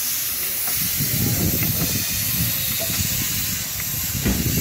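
15-inch gauge steam locomotive hissing steam. An uneven low rumble comes in about a second in.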